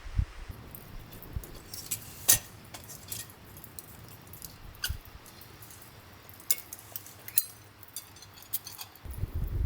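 Camping gear being handled: irregular light metallic clinks and clicks, with a louder click about two seconds in. Low wind rumble on the microphone at the start and again near the end.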